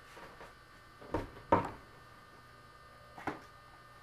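Steady electrical mains hum in a small room, broken by a few brief sharp sounds: two close together about a second and a half in, the second the loudest, and a smaller one near the end.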